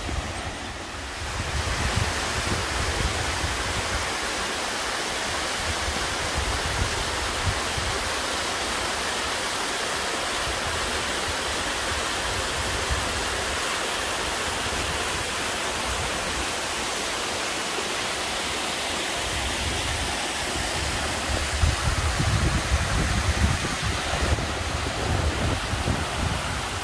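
Boksungtang waterfall pouring into its plunge pool: a steady, even rush of falling water. In the last several seconds, wind buffets the microphone with uneven low rumbles.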